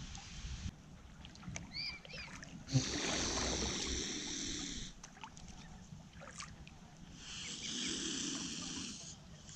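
Mute swan hissing: two long breathy hisses, about three and about seven and a half seconds in, the swan's warning with its cygnets close by. A few thin, rising-and-falling peeps from the cygnets come just before the first hiss.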